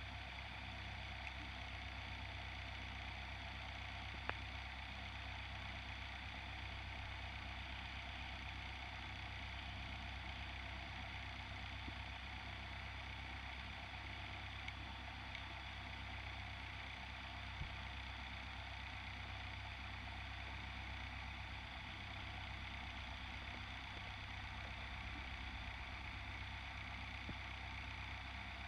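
Steady underwater ambient noise heard through a submerged camera: a constant low engine-like hum with a hiss above it, and a few faint clicks.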